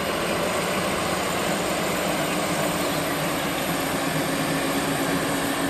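JCB Fastrac tractor's engine running steadily under load as it pulls a plough, a constant drone with a hiss over it.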